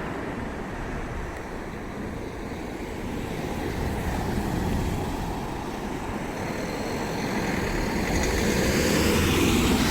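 Road traffic going round a roundabout: a steady wash of engine and tyre noise, with a vehicle drawing closer and getting louder over the last few seconds.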